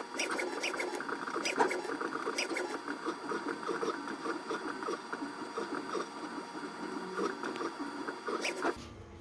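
Diamond drag engraving bit scratching into a powder-coated steel tumbler on a CNC router's rotary axis, with the machine's stepper motors whining in steady tones under irregular scratchy ticks. The spindle is off, so there is no spindle noise. Everything cuts off suddenly near the end as the machine stops.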